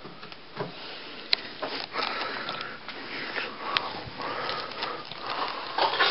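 Breathing and sniffing close to the microphone, with rustling and a few small clicks from handling a handheld camera as it is moved about.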